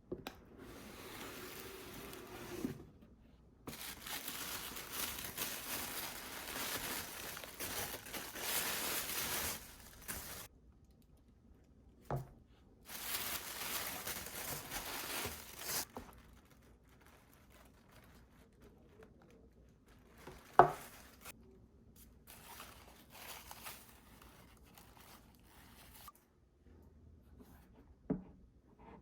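Paper or plastic packaging being torn and crinkled in two long stretches, with a single sharp knock about two-thirds of the way through.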